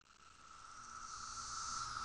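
Chorus of Brood X periodical cicadas fading in and growing louder: a steady droning buzz with a higher hissing layer above it.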